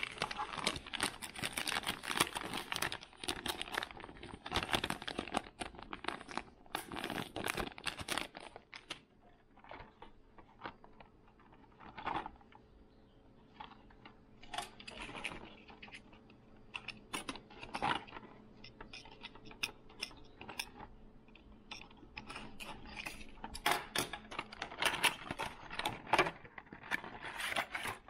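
Hands unpacking and handling fishing lures and their plastic packaging: a run of irregular clicks, taps and crinkles. Busy at first, sparser in the middle, busy again near the end.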